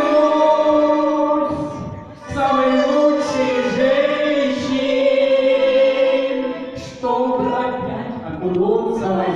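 An elderly man and woman singing a song live as a duet into microphones, with accordion accompaniment, amplified through the hall's speakers. The notes are long and held, with short breaks between phrases about two seconds and seven seconds in.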